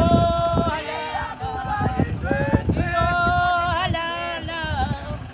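Voices singing, several at once, with long held notes that bend and waver.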